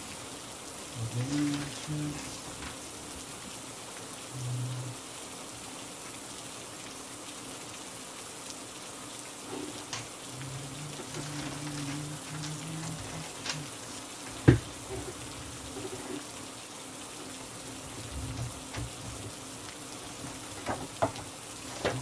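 Steady rain, with the rustle and flick of notebook pages being handled and turned. A single sharp knock about two-thirds of the way through is the loudest sound, with a few smaller clicks near the end.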